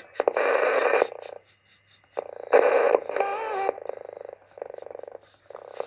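AM radio hissing and crackling in bursts while it is tuned for a weak transmitter signal, with a short wavering whistle about three seconds in and a rapid buzz near the end.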